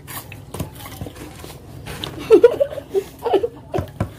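Children chuckling and giggling in a few short bursts, loudest a little past halfway, with small clicks in between.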